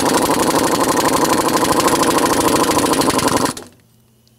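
Pneumatic impact wrench hammering a bolt home on a water-blasting pump's manifold: a fast, steady rattle of blows that cuts off about three and a half seconds in.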